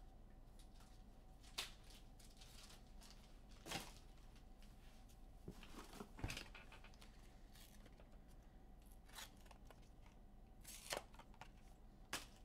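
Faint sounds of trading cards and their packaging being handled: about five short clicks, scrapes and rustles spread through near silence.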